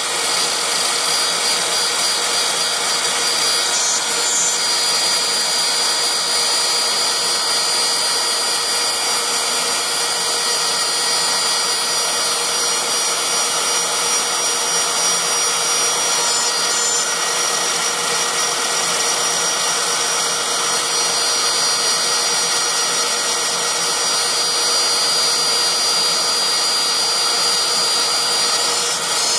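CNC router spindle running with a small end mill cutting 6061-T6 aluminium plate: a steady high whine over the even hiss of the cut.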